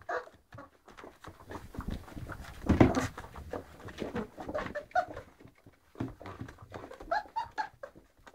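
Two-week-old Great Dane puppies giving short high squeaks a few times, amid rustling and scuffling, with a louder bump about three seconds in.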